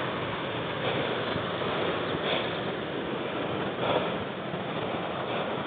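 Heavy breathing close to the microphone from a runner climbing steep sand steps, heard as a steady rushing noise that swells about every second and a half.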